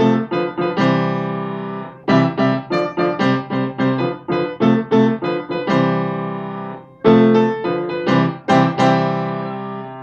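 Upright piano playing quick runs of notes, broken three times by chords that are held and left to ring out. The last chord fades away near the end.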